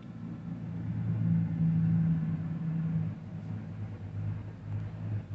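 A low, steady motor hum with two pitches, swelling about a second in and easing after about three seconds.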